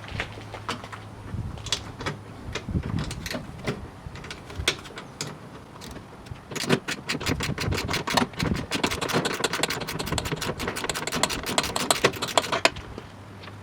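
Socket ratchet working on the 10 mm bolts that hold a car door's window motor: scattered clicks and metal taps at first, then a long run of fast ratchet clicking that stops abruptly near the end.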